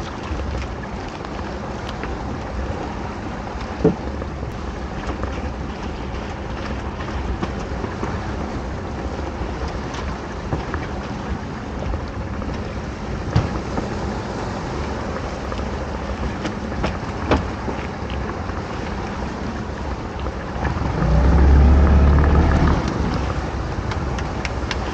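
Steady low rumble of a small fishing boat's engine running, under wind and water noise, with a few sharp knocks from rope and gear against the boat. The engine sound grows louder for a couple of seconds near the end.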